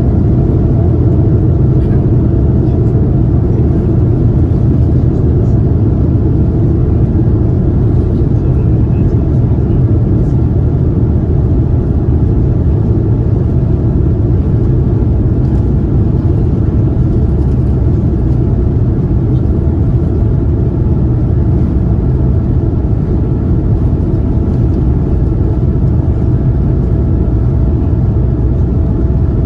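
Steady cabin noise inside a Boeing 787-9, its GEnx engines running: a loud, even deep rumble with faint steady hums above it and no change in pitch or level.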